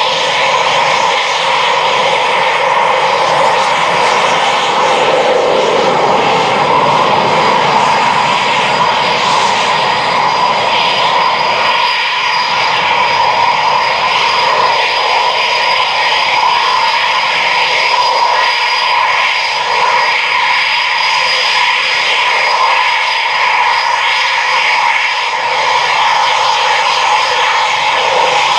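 Eurofighter Typhoon FGR4's twin Eurojet EJ200 turbofans running steadily at taxi power as the jet rolls along the runway. The sound is a loud, even jet rush with a thin high-pitched whine held on top.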